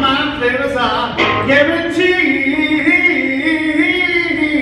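Man singing live with electric guitar, holding a long wavering note through the second half.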